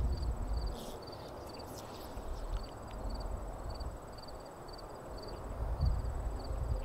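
Insects chirping: a short, cricket-like chirp repeating evenly about twice a second over a thin, steady high-pitched buzz. Low wind rumble on the microphone eases off about a second in and builds again near the end, with a few faint rustles in between.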